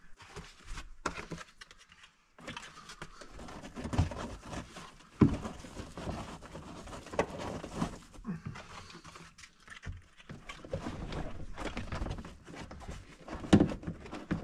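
Hands tucking a dash cam cable into the car's plastic interior trim: irregular light rustling, taps and small knocks. A sharper knock comes about five seconds in and another near the end.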